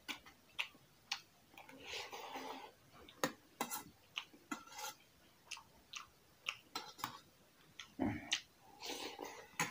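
Close-up eating sounds: chewing and mouth smacks with a metal spoon clicking and scraping against an enamel bowl, a string of short sharp clicks with longer noisy stretches about two seconds in and near the end.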